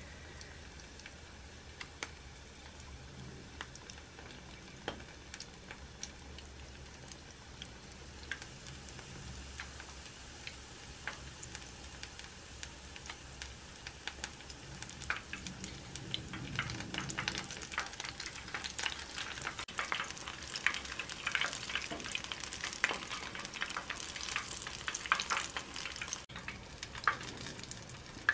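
Battered butterbur buds frying as tempura in hot oil in a pan, sizzling with scattered pops and crackles. The crackling grows denser and louder about halfway through.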